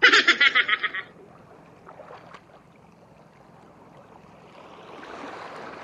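A short burst of rapid laughter, then surf washing up the gravel beach, its hiss swelling near the end.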